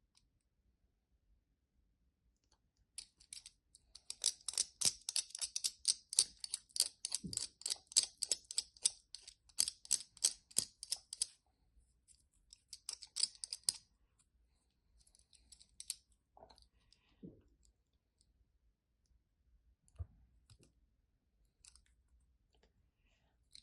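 Dry soap crunching and crumbling under pressure: a dense run of crisp crackles starts about three seconds in and lasts some eight seconds. A shorter run follows, then a few scattered cracks.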